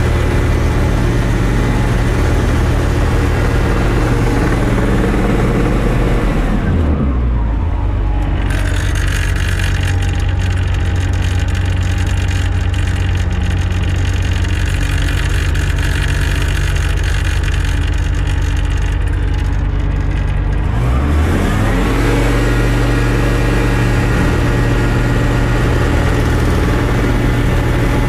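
Small engine running on a dynamometer at about 7,000 rpm; several seconds in its pitch falls to roughly 2,800 rpm and holds there, then about three-quarters of the way through it climbs back up to about 7,000 rpm.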